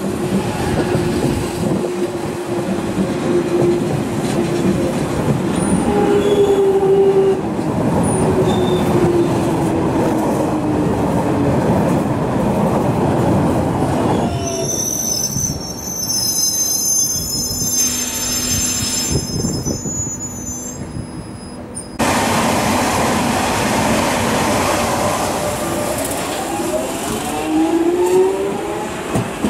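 London Underground 1996 Stock Jubilee line trains running on the rails. A train pulls out with the rumble of its wheels on the track and a motor whine that falls slowly in pitch, then a high steady wheel squeal. After a sudden change about 22 seconds in, another train's whine rises in pitch near the end.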